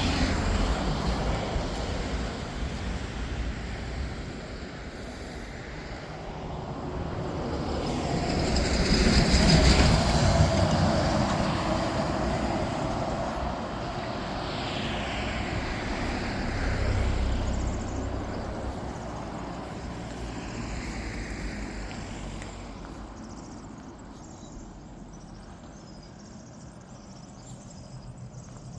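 Rumble of a passing vehicle, swelling to its loudest about ten seconds in and then fading away, with a falling whine twice as it recedes.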